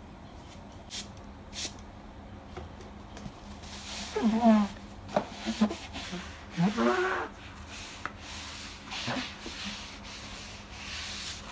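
A spray bottle squirts twice, then a sponge wipes a tiled kitchen counter with a rubbing noise. Two squeaks of the sponge on the tile come about four and seven seconds in.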